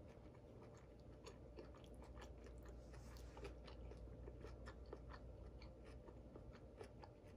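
Faint close-up chewing of a consommé-dipped beef birria taco, with scattered soft mouth clicks and smacks, over a low steady hum.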